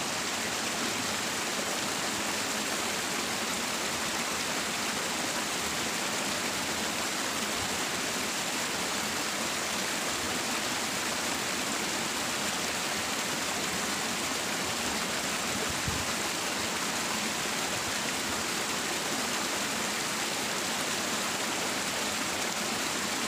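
Water rushing steadily along a small irrigation ditch, a constant hiss of flowing water that makes the spot a bit noisy.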